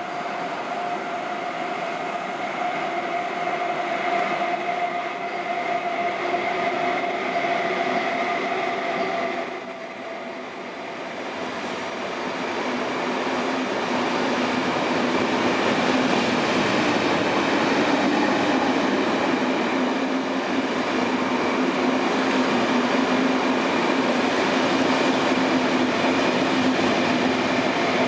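KTT double-deck through train running through a station platform without stopping. It approaches with a few steady high tones and rising noise, then goes louder and fuller from about twelve seconds in as the coaches pass, with wheels rumbling and clattering on the rails.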